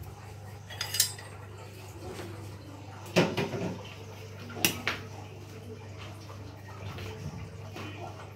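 A metal spoon clinking against kitchen dishes and containers a few times, once about a second in with a brief ring, then around three and five seconds in, over a steady low hum.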